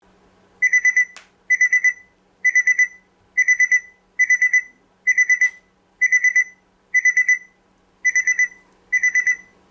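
G63 multifunction wireless charger's built-in digital alarm clock going off: high electronic beeps in quick groups of four, each group repeating about once a second, starting just under a second in.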